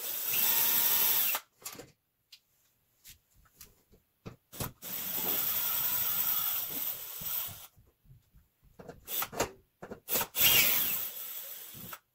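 Cordless drill/driver spinning out the screws of an electrical panel cover in separate runs: a short run, a longer one of about three seconds, then a few brief bursts near the end. Small clicks and knocks fall between the runs.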